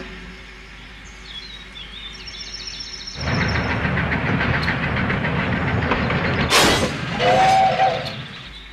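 Faint high bird chirps, then a steam locomotive starts chuffing about three seconds in in a steady rhythm. Partway through comes a sharp hiss of steam, followed by a short two-note steam whistle, before the chuffing fades near the end.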